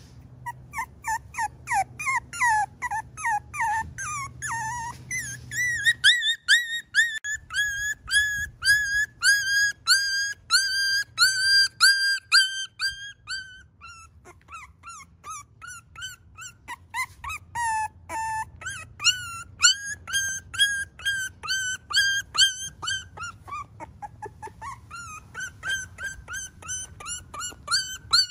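Young Miniature Schnauzer puppy crying in a long run of short, high-pitched squeals, about three a second, with a brief break about halfway through and another later on.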